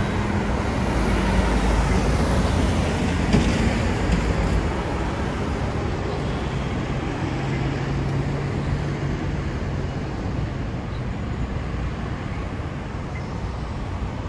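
Road traffic on a busy multi-lane city street: trucks and cars driving past with a low engine rumble, loudest in the first few seconds and easing off after. A short sharp knock sounds about three and a half seconds in.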